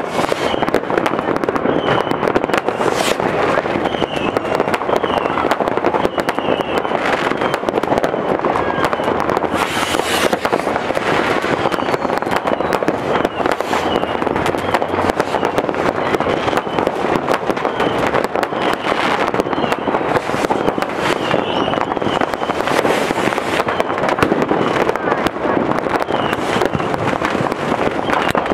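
New Year's Eve fireworks and firecrackers going off all around in an unbroken din, many bangs near and far overlapping with no pause.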